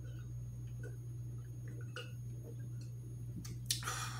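Gulping a drink from a glass: a few faint swallow clicks over a steady low hum in the room, then near the end a sharp knock and a breathy exhale as the glass is set down.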